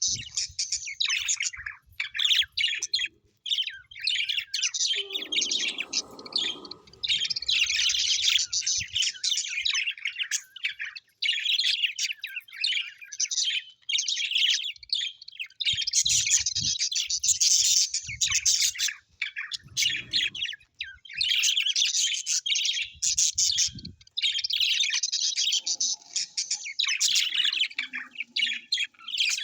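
Several small birds chirping and chattering in rapid, high-pitched bouts with short pauses between them.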